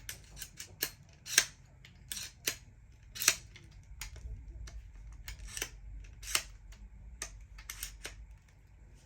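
Irregular sharp clicks and taps of hard parts and tools being handled during flat-pack furniture assembly, with a few louder clacks in the first few seconds.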